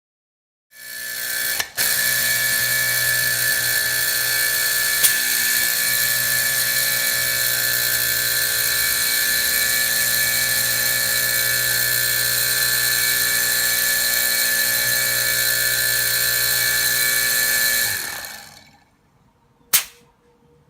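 An electric motor-driven machine starts up, runs at a steady speed with a shrill, even whine for about seventeen seconds, then winds down. A single sharp click follows near the end.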